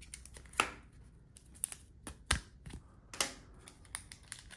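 Trading cards being handled and set down: a handful of light, separate clicks and taps, the sharpest about half a second in and just after two seconds.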